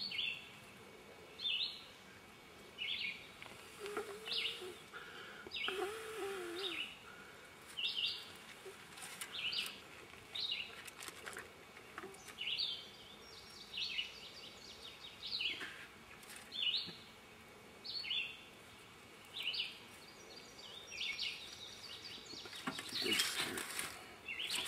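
A songbird calling over and over, one short, high, falling note about every second and a half. Near the end there is some rustling and crackling as sticks are handled in the fire.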